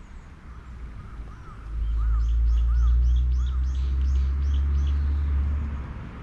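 A bird calling over and over, a quick run of about nine short repeated notes, against a low rumble that swells about two seconds in and fades toward the end.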